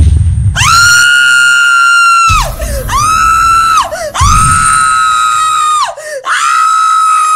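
Music: four long, very high held notes, each sliding up into pitch at the start and dropping away at the end, over a low bass rumble.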